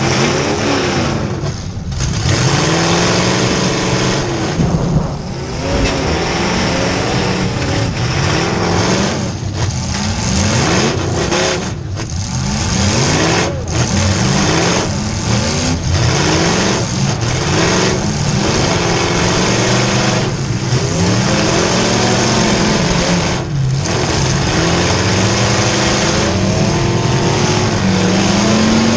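Demolition derby car's V8 engine revving up and down over and over, heard from inside the car, its pitch rising and falling every second or two with short let-offs of the throttle.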